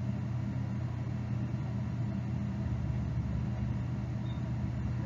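Steady low background hum with a couple of faint held low tones, unchanging throughout, and nothing else.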